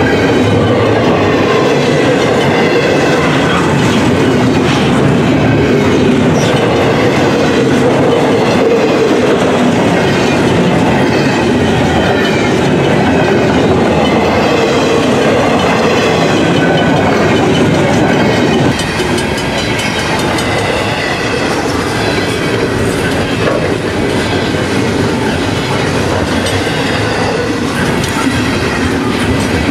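Double-stack container train's well cars rolling past, a steady rumble of steel wheels on the rails with clickety-clack over the rail joints. The level drops slightly about two-thirds of the way through.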